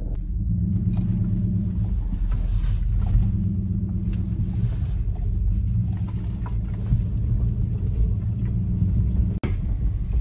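Steady low rumble of a Dodge Ram pickup towing a small Daihatsu Hijet truck, heard from inside the towed truck's cab, with tyres running through puddles on wet gravel. The sound cuts out for an instant near the end.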